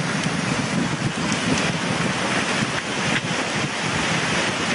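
Flash flood of muddy, debris-laden water rushing down a creek bed, a steady, unbroken rush of water.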